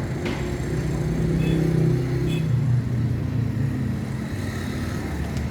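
An engine running steadily with a low hum, its pitch shifting slightly about halfway through, and a light click near the start.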